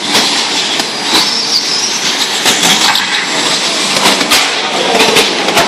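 Radio-controlled short-course trucks racing on a dirt track: their electric motors whine, one whine rising in pitch about a second in, over a steady rush of noise with scattered sharp clicks and knocks.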